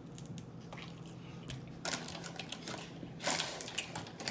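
Close-miked chewing of crunchy fried food: quick, irregular crackling crunches, sparse at first and densest in the last second or so.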